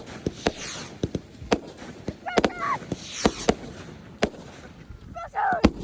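Fireworks going off: a series of sharp bangs and cracks at irregular intervals, with a hiss or crackle between them.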